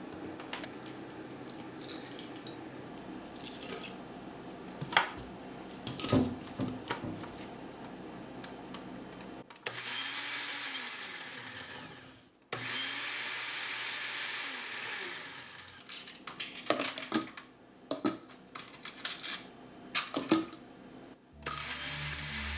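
Countertop blender running in two bursts of about three seconds each, blending fruit for a smoothie, with clicks and knocks of handling before and after.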